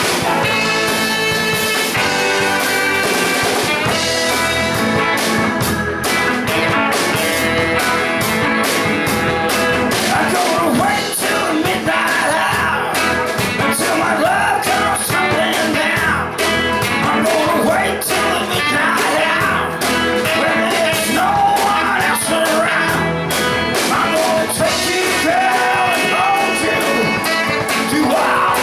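Live rock and roll song with guitar and drums, a singing voice coming in about ten seconds in.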